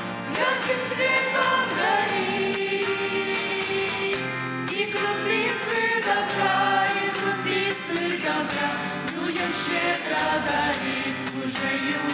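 Choir singing a Russian Christian song with instrumental accompaniment: held, gliding vocal notes over a bass line and light percussion.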